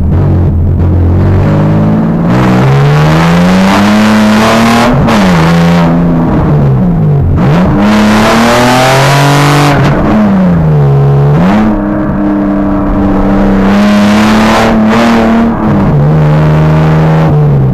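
BMW E30's swapped-in M50B25 2.5-litre inline-six pulling hard through the gears, heard from inside the cabin: the engine note climbs, drops sharply at each of three upshifts, then holds steady at cruise and eases off near the end.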